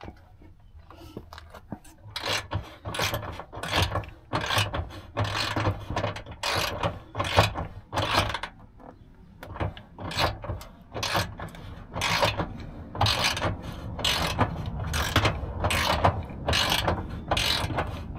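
Land Rover LR4 spare tire carrier winch being hand-cranked, with a steady ratcheting click about twice a second starting about two seconds in, as its cable winds in and hoists the spare wheel up under the vehicle.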